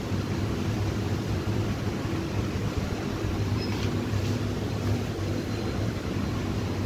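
Steady low mechanical hum over a background hiss, with a couple of faint clicks near the middle.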